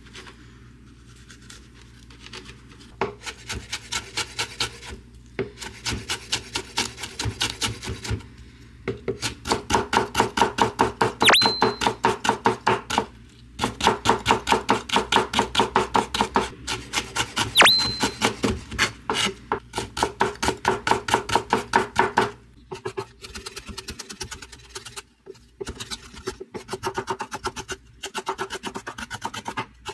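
Chef's knife rapidly slicing fresh ginger into thin julienne strips on a wooden cutting board: quick, even runs of crisp chops, several a second, knocking on the board. The runs break off in short pauses, and the strokes grow softer and more spaced out over the last several seconds.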